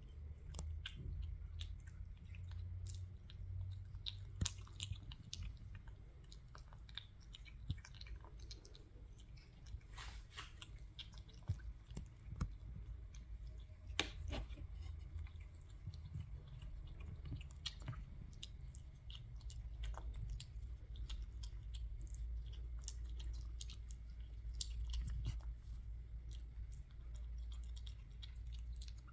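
British shorthair kitten eating raw minced meat: wet chewing with many small, irregular clicks of its mouth and teeth.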